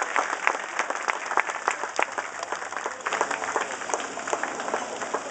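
Audience applauding, a dense patter of hand claps that thins out and fades toward the end.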